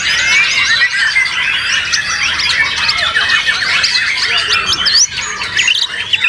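Many caged white-rumped shamas (murai batu) singing at once: a dense, unbroken tangle of quick chirps, whistles and trills.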